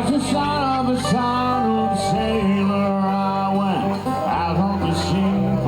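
A band playing country-style music with plucked string instruments.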